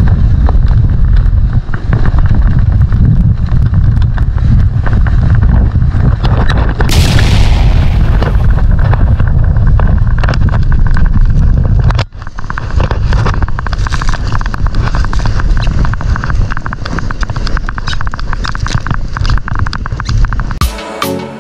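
Sled sliding fast downhill over snow, heard as heavy wind buffeting and rumbling on the camera's microphone, with a loud hiss of snow spray about seven seconds in. After a sudden cut about twelve seconds in, a lighter, crackling scrape of the sled over snow continues.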